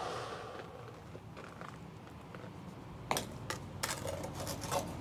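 Faint handling noise: a few light clicks and taps in the second half, over low steady background noise.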